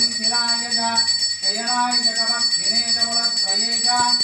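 A temple hand bell rung steadily throughout puja, its high ringing unbroken, over a voice chanting mantras in long held, gliding tones.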